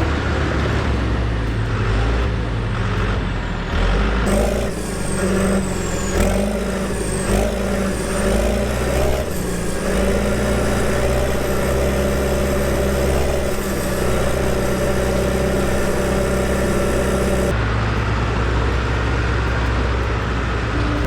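Diesel engine of a John Deere 450H crawler dozer running steadily under work. A thin high whine wavers up and down, with a few knocks, from about four seconds in until about three-quarters of the way through.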